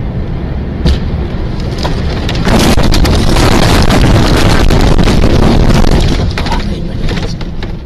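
Highway road noise heard from a vehicle's dashcam, a sharp knock about a second in, then from about two and a half seconds a loud, sustained crash as a semi truck hits a car and shoves it sideways along the road, a dense run of impacts and scraping that fades near the end.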